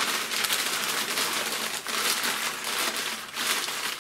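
A sheet of newspaper being crumpled by hand in towards the center into a ball, with dense, continuous crackling and rustling of the paper.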